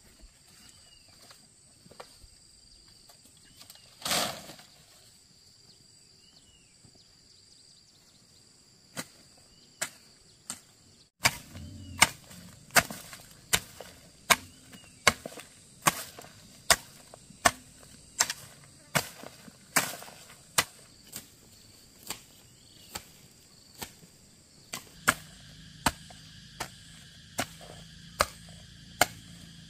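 Sharp knocks of a tool striking in a steady rhythm, about one stroke every 0.8 seconds, starting about eleven seconds in, over a faint steady high hum.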